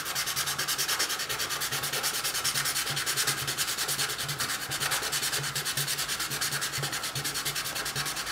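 A small piston being rubbed in quick, even strokes on fine 400–600 grit sandpaper, a steady rhythmic scratching. It is being sanded down to ease its too-tight fit in a glass test-tube cylinder.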